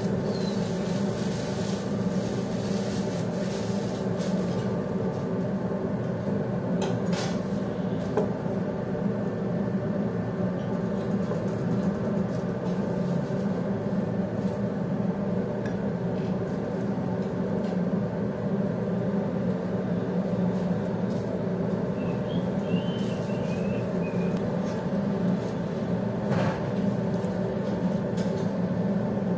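A steady mechanical hum with several steady tones, and a few short knocks of a knife on a plastic cutting board as papaya is cut.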